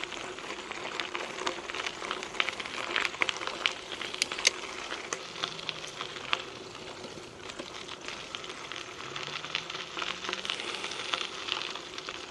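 Mountain bike tyres crunching and crackling over a gravel trail, a dense run of small sharp clicks over a steady hiss, with a faint steady hum underneath.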